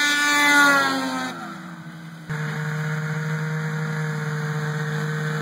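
A snowmobile engine passing close by, its pitch rising and then falling as it goes past and fades away. About two seconds in it changes abruptly to a snowmobile engine running at a steady pitch while towing a rider on a sled.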